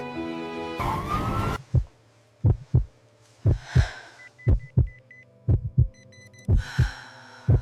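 Heartbeat sound effect: pairs of short low thumps about once a second over a faint hum, coming in after a brief whoosh about a second in.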